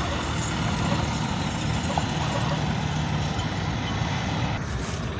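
Tractor engine running steadily as it pulls a loaded trailer away.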